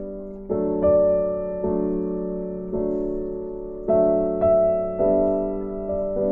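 Slow, soft piano background music: chords struck about every half second to a second, each ringing and fading before the next.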